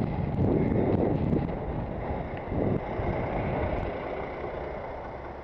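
Wind buffeting a helmet-camera microphone on a moving bicycle, a rough low rumble with nearby traffic under it; the buffeting is loudest over the first three seconds, then eases.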